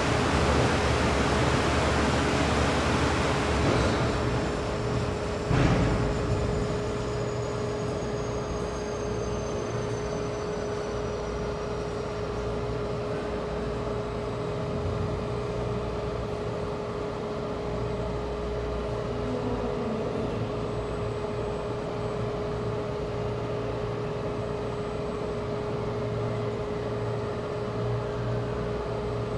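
Bank of wind-making fans being shut down: the rush of air drops off about four seconds in, and a thin whine falls slowly in pitch as the fans spin down, over a steady hum. A single knock comes a couple of seconds after the rush stops.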